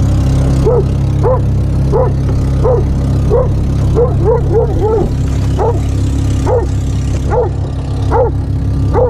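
Doberman pinscher barking over and over, about one bark every three quarters of a second with a quicker run of barks midway, deliberately calling out to another dog. Under it the side-by-side UTV's engine runs steadily.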